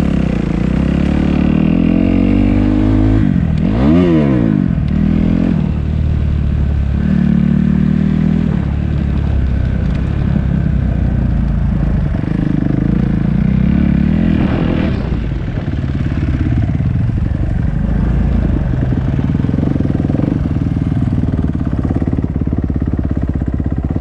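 Dirt bike engine running while being ridden, its pitch rising and falling several times as the throttle is opened and closed.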